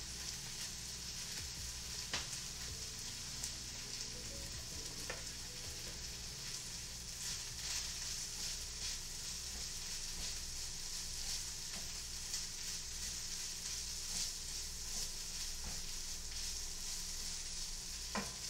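Food sizzling steadily in a frying pan, with a few sharp clicks of a utensil against the pan.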